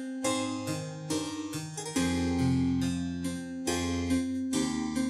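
Background music: a harpsichord-like keyboard playing a run of plucked notes over sustained bass notes.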